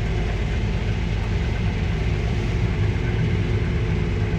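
Heavy farm machinery's engine running steadily under a constant low drone.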